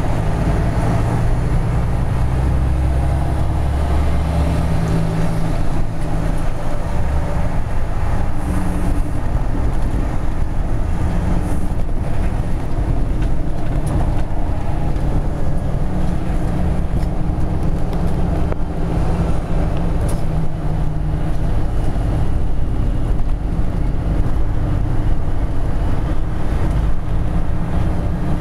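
A truck's engine drones steadily at speed, heard from inside the cab, with tyre and road noise over it.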